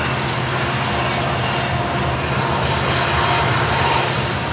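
Loaded coal hopper cars rolling steadily past on the rails, over the steady drone of diesel locomotive engines working the train upgrade.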